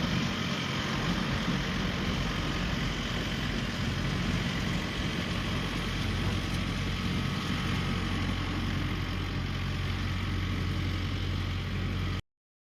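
Heavy vehicle engine running steadily at a constant speed, a low even drone with no revving, cutting off suddenly near the end.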